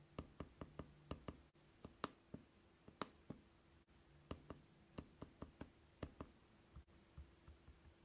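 Light finger taps on the lower edge of an Acer Chromebook Spin 513's glass trackpad, each tap giving a sharp click: the pad's bottom edge is loose. The irregular taps come a few a second, with two louder clicks about two and three seconds in and softer ones near the end.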